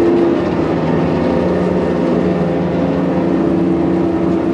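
YANMAR EX38's thruster running steadily to push the boat sideways off its berth. It is a loud, even hum with several held tones and comes on abruptly.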